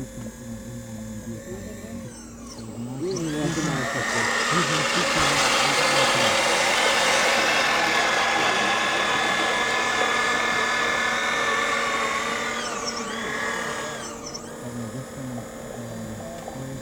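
Hydraulic pump motor of a radio-controlled scale-model CAT 5110B excavator whining. It spins up about three seconds in and runs loud and steady while the boom swings and dumps a bucket of soil. It winds down and drops back to a low idle hum a couple of seconds before the end.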